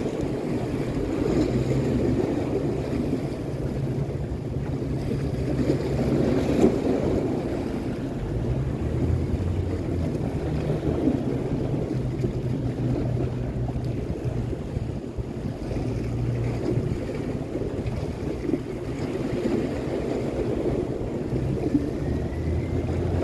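Sea waves washing against the breakwater rocks, with wind on the microphone, under a low engine drone that steps to a new pitch a few times.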